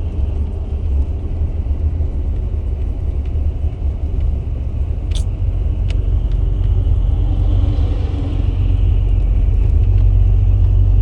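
Low steady rumble of a car driving at speed, heard from inside the cabin: engine and road noise, growing a little louder toward the end. Two short sharp clicks come about five and six seconds in.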